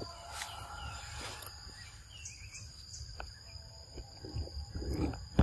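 Forest ambience led by a steady high-pitched insect drone, with a brief bird-like chirp about two seconds in and scattered soft clicks and rustles. A sharp click comes near the end.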